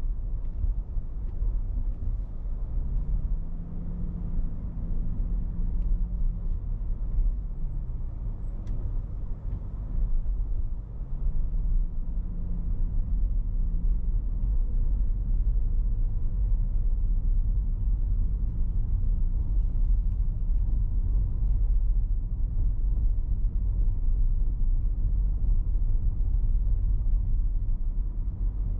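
Car driving slowly, a steady low rumble of engine, tyres and wind. The engine note rises twice as the car gathers speed, about three seconds in and again about eleven seconds in, easing off in between.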